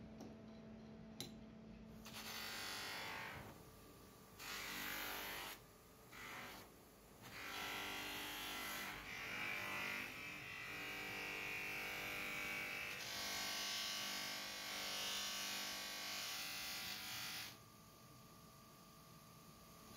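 Cloth buffing wheel on an electric motor shaft polishing a metal juicer handle. A motor hum runs under a hissing rub that starts about two seconds in, breaks off a few times in short contacts, then holds steady until near the end, when it drops back to the hum.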